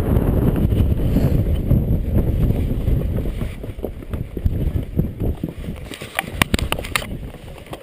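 Strong wind buffeting the microphone in a heavy low rumble, easing after about four seconds. Near the end comes a quick run of sharp clicks.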